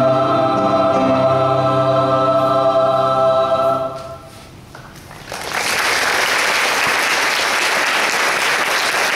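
Mixed choir holding a sustained chord, with the lower voices shifting beneath it, cut off a little under four seconds in. After a second or so of quiet the audience breaks into steady applause.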